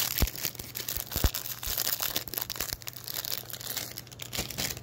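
Plastic snack packaging crinkling and rustling as it is handled, with scattered clicks and a couple of sharper knocks in the first second and a half.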